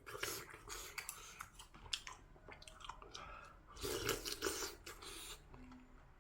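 Close-up mouth sounds of a person chewing braised kimchi, pork and tofu: wet smacking and munching with small crunches, louder for a moment about four seconds in.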